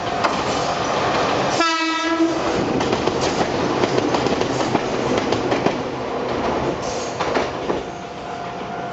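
Ohmi Railway 800 series electric train (ex-Seibu 401 series) gives one short horn blast about two seconds in. It is sounded at a whistle sign for an unguarded level crossing. The train then runs close past with a loud rush of running noise and clicks of wheels over the rails, dropping away near the end.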